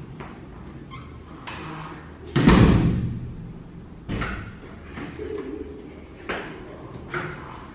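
A few dull thuds with a short echo, the loudest about two and a half seconds in, and two smaller ones later.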